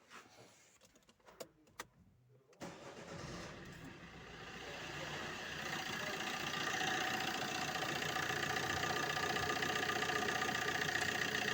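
A few light clicks, then the Opel Combo's 1.3 CDTI turbodiesel starts about two and a half seconds in and settles into a steady idle. It runs without the whistle of a burnt exhaust manifold gasket, the gasket having been freshly replaced.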